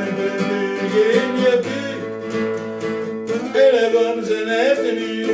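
A song with strummed acoustic guitar and a wavering sung line.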